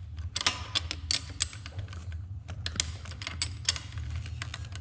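Rapid, irregular metal clicks from a hand wrench being worked on a bolt of a Honda CRF110 engine's intake, with a short pause about two seconds in. A steady low hum runs underneath.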